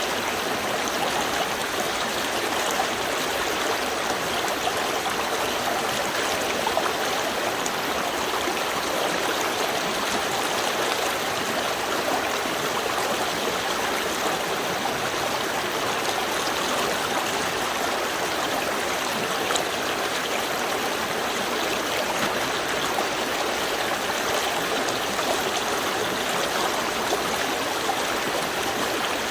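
Small river stream flowing over stones, a steady, even rush of water with light gurgling.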